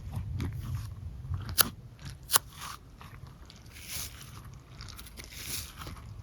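Fidget toy being handled: two sharp clicks in the first half, then soft crackling and crunching.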